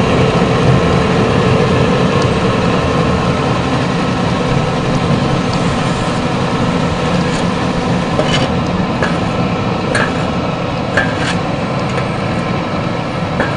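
400-model wood pellet mill running, pressing out pellets: a loud, steady mechanical drone with a hum. A few sharp clicks come in the second half.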